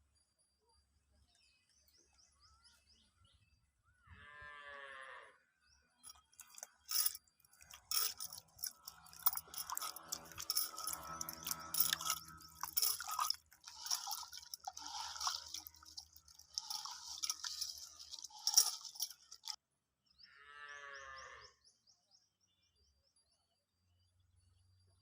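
An animal calling twice, each call drawn out for about a second and a half, about four seconds in and again near the end. Between the calls runs a long, louder stretch of clattering, knocking and scraping.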